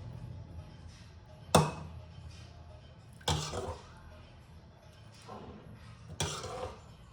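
Kitchenware clacking while food is plated: three sharp knocks, about a second and a half in, after about three seconds and near the end, the first the loudest.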